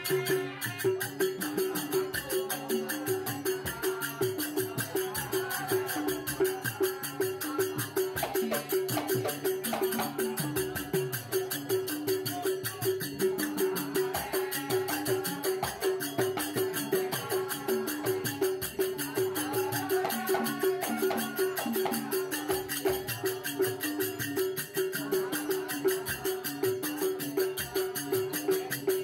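Traditional folk music with a steady, quick percussion beat and a wandering melody line over it, playing without a break.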